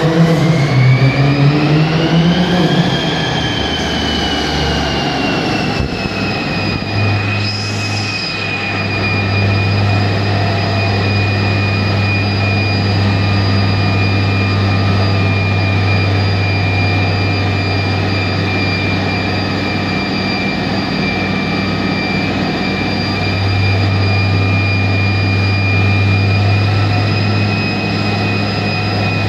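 Mercedes-AMG C43's tuned twin-turbo V6, with aftermarket downpipe and Supersprint exhaust, running on chassis dyno rollers. It picks up speed over the first few seconds, then holds a steady speed with a steady high whine over the engine's drone.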